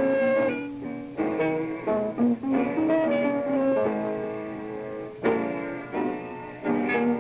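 Jazz trio of guitar, double bass and piano playing, from a 1950s live recording, with plucked guitar chords to the fore and a strong chord about five seconds in.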